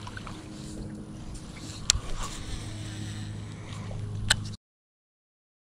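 Whopper Plopper topwater lure churning and plopping across the surface as it is reeled in on a baitcasting reel, over a steady low hum, with two sharp clicks. The sound cuts off abruptly about three-quarters of the way through.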